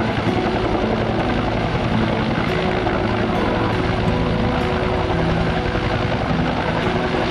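Helicopter running close by: a steady, rapid rotor beat under a few steady whining tones from the engine.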